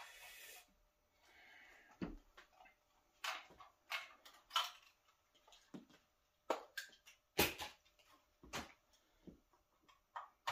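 Irregular clicks and knocks of handling: an air-pump hose and its plastic fittings being fiddled with and pushed together, the strongest knock about seven and a half seconds in.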